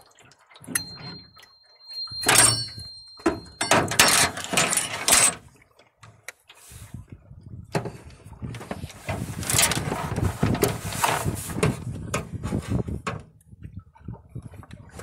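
A struck metal tuning fork ringing with a high, steady tone for about three seconds, starting about a second in, over loud knocks and rustling. The rest is a long stretch of rough rustling and knocking noise.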